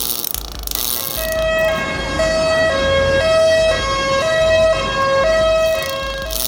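Fronius TransSteel 5000 MIG welder's arc in SynchroPulse mode, the pulse switching between two settings so that the buzzing arc alternates between a higher and a lower tone about every half second, like a two-tone ambulance siren, over a steady crackle.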